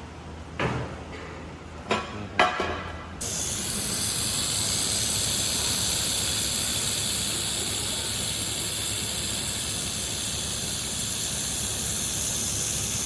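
Handheld fiber laser head firing on steel with a loud, steady hiss that starts about three seconds in, after a few short clicks and knocks.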